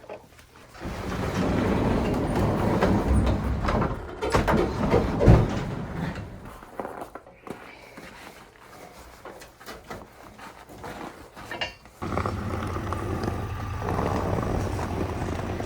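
Wind buffeting the microphone in uneven gusts, a low rumble that rises and falls, with a single knock about five seconds in.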